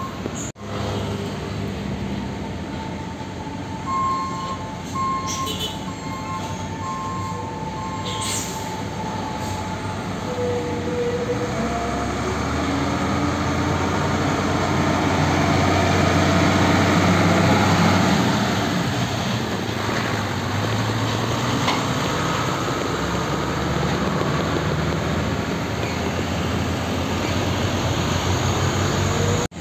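Diesel tractor-trailer hauling a shipping container driving past, engine running with the heavy trailer rumbling and rattling over the road, growing loudest about halfway through as it passes closest.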